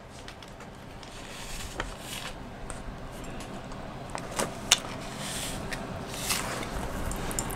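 Crinkly rustling of a small candy packet's wrapper being opened and handled, with a few sharp clicks scattered through.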